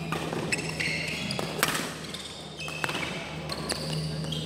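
Badminton rally: a string of sharp racket-on-shuttlecock strikes, spaced about a second apart, with short high squeaks of shoes on the court mat.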